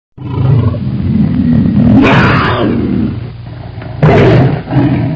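Cat growl-and-roar sound effect: a long, deep, rough growl with two louder, harsher bursts about two and four seconds in.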